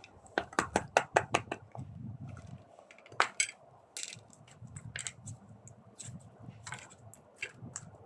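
Small hard objects clicking and clattering as they are handled: a quick run of about eight sharp clicks in the first two seconds, one loud click a little after three seconds, then scattered lighter taps.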